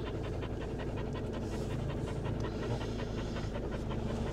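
Fiat motorhome's diesel engine idling after parking, heard from inside the cab as a steady low hum with a fast, even clatter.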